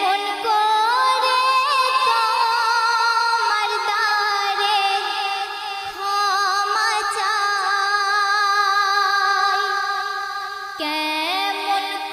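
A woman singing a Bengali Islamic gojol (devotional song) in long, ornamented phrases with drawn-out held notes and vibrato. A new phrase begins near the end.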